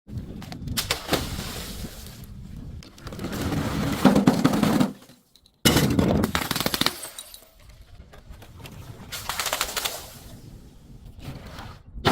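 Objects being crushed, with dense, rapid crunching and crackling that swells and fades in several stretches. The sound stops dead for a moment about five seconds in, then resumes.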